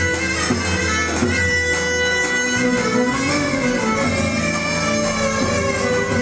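Turkish folk dance music: a shrill reed wind instrument plays a steady, held melody over a deep drum.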